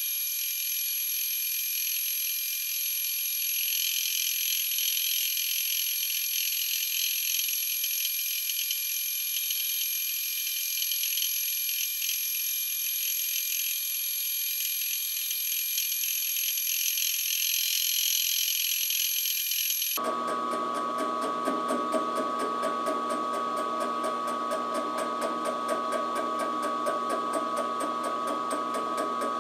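Round-column milling machine running a homemade fly cutter with a carbide insert across the face of a cast-iron Cummins 5.9 exhaust manifold, a steady machining sound with fixed tones. About two-thirds of the way through the sound changes abruptly, becoming fuller and lower with a fine, rapid pulsing.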